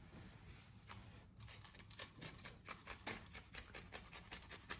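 Tonka bean grated on a fine microplane rasp: quick, faint scraping strokes in a fast, even run, starting about a second in.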